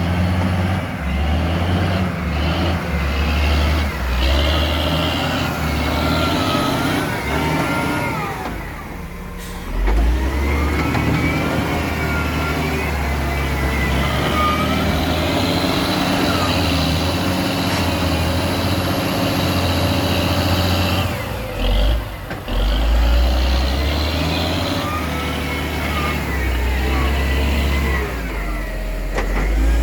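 Large excavator's diesel engine working under load, rising and falling as it digs and swings, with shifting whines over a deep rumble. The engine eases off briefly about nine seconds in and again near twenty-two seconds, then picks up.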